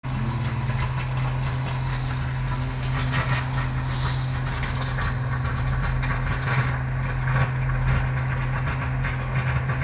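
Pump running with a steady, even hum while water churns at the bottom of a concrete ring well.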